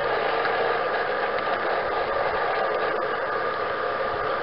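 G gauge model train running along garden track: a steady whirring of its motor and wheels on the rails, with a few faint clicks.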